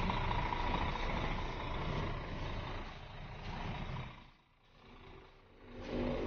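Diesel bus engine idling with a low, steady rumble. About two-thirds of the way through it drops almost to nothing for about a second, then comes back.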